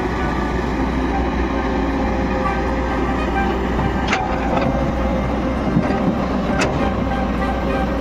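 Kobelco SK210 hydraulic excavator's diesel engine running steadily as the bucket digs into loose soil, with a few brief sharp clicks about four seconds in and again near seven.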